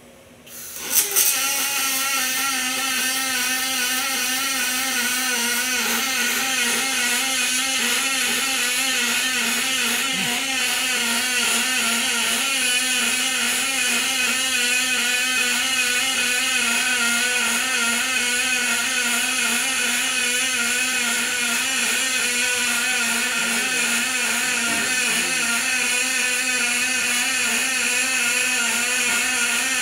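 Robotic MIG welding arc on an aluminium radiator: the arc strikes with a sharp crack about a second in, then runs as a steady, loud buzzing hiss.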